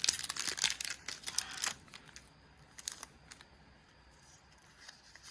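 Foil wrapper of a Pokémon trading card booster pack crinkling and tearing open: a dense run of sharp crackles for about the first two seconds, then a few faint ticks.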